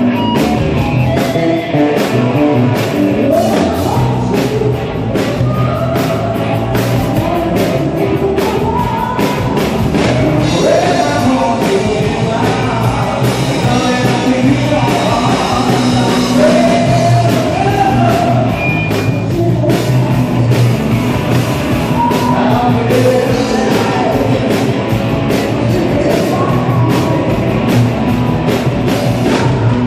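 Live rock band playing a song with a singer's vocals over electric guitars, bass and a drum kit, with steady drum hits.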